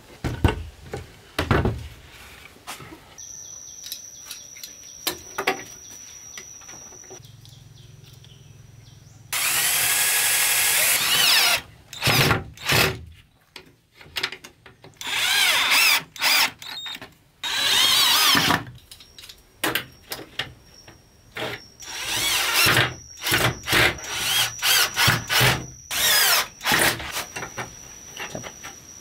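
Power tool working wood in repeated bursts of one to two seconds, with knocks and clicks between them.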